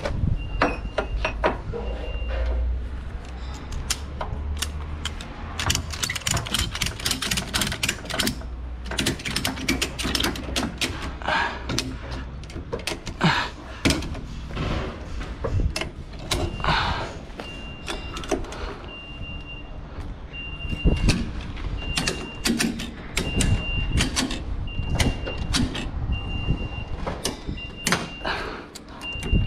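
Ratchet strap being cranked tight on a truck trailer: clusters of sharp ratchet clicks and rattles from the steel buckle. A low engine hum runs under the first several seconds, and from about halfway a vehicle's warning beep sounds about once a second.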